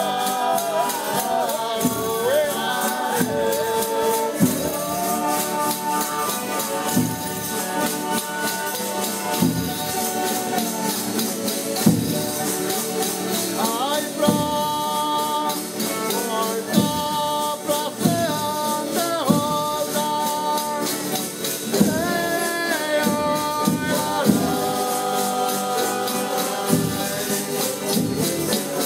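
A Folia de Reis troupe singing a slow toada, voices holding long notes in harmony over strummed guitars and a jingling tambourine, with a low drum beat about every two and a half seconds.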